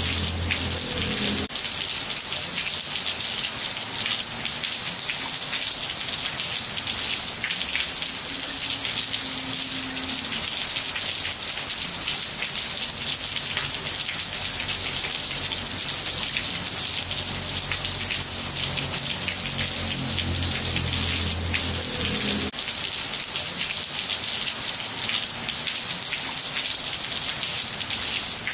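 Steady rain falling on a wet ceramic-tiled floor: a dense, even hiss made of countless small drop impacts.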